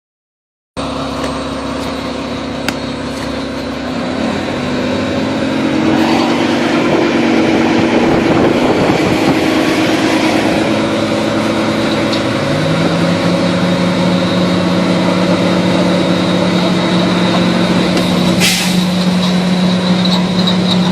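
A vehicle engine running, its hum shifting in pitch a few times, over a steady rushing noise. A short sharp sound comes near the end.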